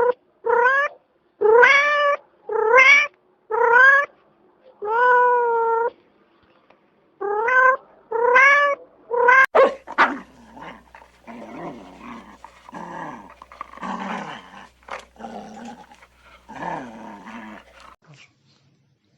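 A cat meowing repeatedly: about nine short, high calls, each rising in pitch. About halfway through it gives way to a lower, rougher animal voice making falling calls.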